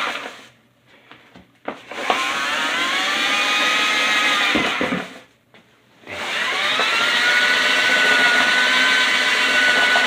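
Hoover floor scrubber's brush motor spinning homemade bristle brushes on a dry floor, a pitched whine in three spells. It cuts out twice for about a second, and each time it restarts the whine rises to speed, then holds steady through the last few seconds.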